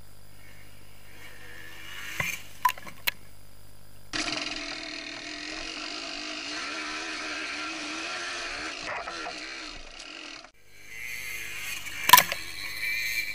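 Yamaha DT 125 single-cylinder two-stroke dirt bike ridden over a muddy trail. It is first heard approaching with a few sharp knocks, then up close with its engine note wavering up and down as the throttle changes. Near the end it passes close by with a sharp crack.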